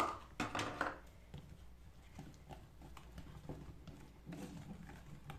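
Wire whisk stirring thick muffin batter in a plastic bowl: faint, irregular light clicks and soft scraping, with a short clatter in the first second.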